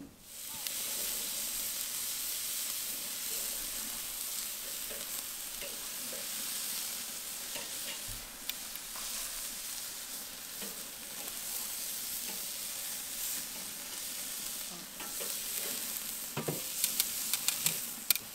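Brats and hamburger patties sizzling steadily over hot coals on a charcoal kettle grill. Near the end come a few sharp clicks of metal tongs against the grate.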